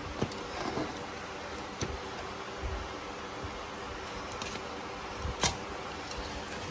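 A utility knife trimming a sheet of Hydro-Turf foam decking, with a few light clicks and taps from the blade and the handled sheet, the sharpest about five and a half seconds in, over a steady hiss.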